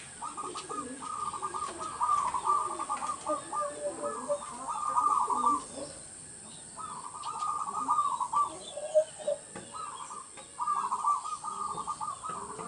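Zebra doves (perkutut) cooing: rapid, rippling phrases of about one to two seconds each, repeated with short pauses, several birds overlapping.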